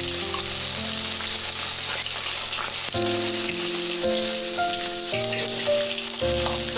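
Ivy gourd (dondakaya) pieces deep-frying in a kadai of hot oil, a steady sizzling hiss. Background music with held notes plays over it.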